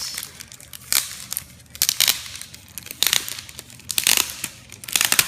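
Packaging being crinkled and torn open by hand, in about five rustling bursts roughly a second apart.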